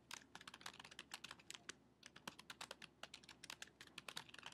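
Typing on a computer keyboard: a fast, irregular run of faint key clicks, with a brief pause about two seconds in.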